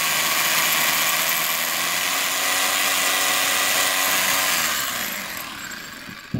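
Rotary hammer drill boring into a concrete wall with a masonry bit, running steadily, then slowing and winding down near the end. A short knock follows just before the end.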